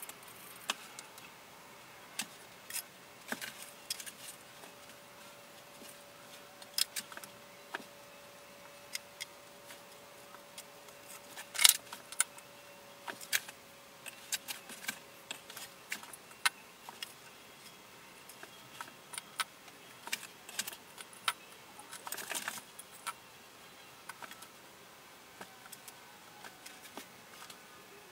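Irregular light clicks and clinks of small marble mosaic tile pieces knocking against each other as they are handled and sorted, with one sharper click about twelve seconds in. A faint steady hum runs under the first half.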